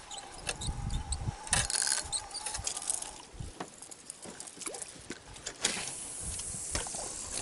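Light clicks and scratchy ticking from spinning tackle being worked in a boat, with scattered knocks and two short bursts of hiss.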